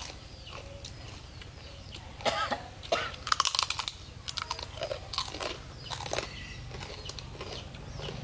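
People chewing and crunching raw fish salad with fresh greens up close: scattered sharp crunches, busiest a couple of seconds in.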